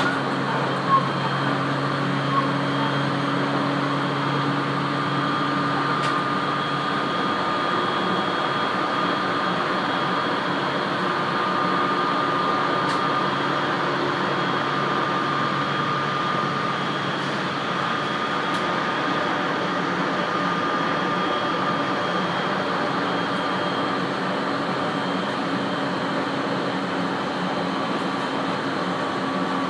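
Cabin noise of an Aoimori Railway 701 series electric train running at speed: a steady rumble of wheels on rail with a few steady humming tones from the electric drive. Two small knocks come about a second and two and a half seconds in.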